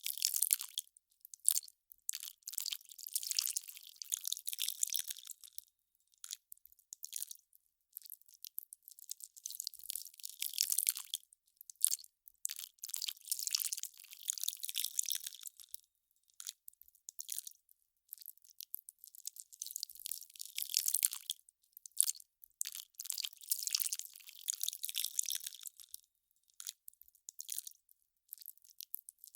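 Melting ice crackling and popping: a thin, crisp crackle of many tiny clicks. It comes in dense stretches of a few seconds each, separated by short lulls.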